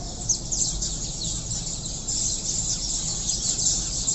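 A flock of small birds chirping, many quick overlapping chirps that grow busier about halfway through, over a steady low rumble.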